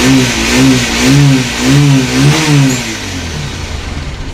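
Bajaj Pulsar 180's single-cylinder engine revving in short throttle blips, rising and falling in pitch about five times, then dropping back quieter near the end. The engine has just been rebuilt with a new piston and rebored cylinder.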